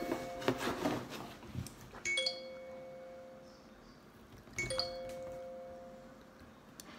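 Phone ringtone: a doorbell-like two-note chime repeating about every two and a half seconds, twice in full, with a third starting right at the end.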